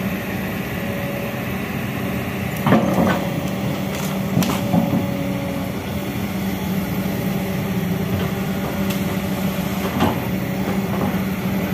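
Kobelco hydraulic excavator's diesel engine running steadily as its bucket pulls at tree roots and brush, with a few sharp cracks and knocks, the loudest about three seconds in.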